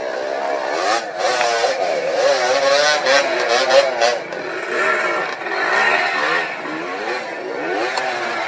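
Yamaha 125 cc two-stroke dirt bike engine running, its pitch rising and falling as the throttle is blipped, with a few clattering knocks about one to four seconds in.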